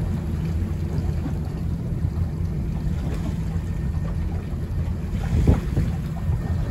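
Wind buffeting the microphone aboard a boat on choppy water, a steady low rumble with water splashing; a louder gust or splash about five and a half seconds in.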